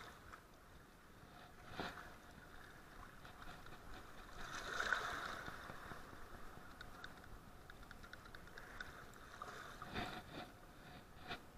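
Faint, steady rush of a fast, foaming river current, with a couple of soft knocks and a brief louder surge of noise about five seconds in.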